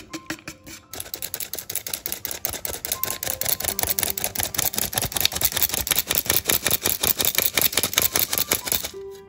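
Flour sifter clicking rapidly and evenly, about six ticks a second, as flour, cinnamon and baking powder are sifted into a stainless steel bowl. A few separate clicks come first, and the clicking stops shortly before the end.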